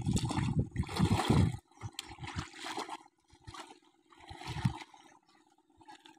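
Hands splashing and sloshing in shallow muddy river water, in irregular bursts that are loudest in the first second and a half, then weaker splashes further on.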